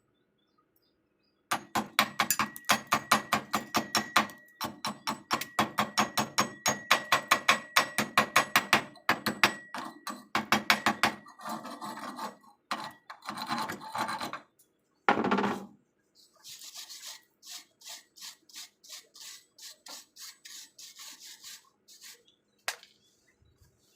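Hand wire brush scrubbing a weld on steel with quick back-and-forth strokes, about four a second, that turn irregular about halfway through and end in a run of lighter, quieter strokes.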